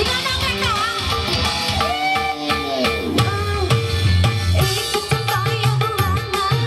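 Live dangdut music: a band plays with kendang hand drums keeping a steady beat under a keyboard, and a sliding, ornamented melody line.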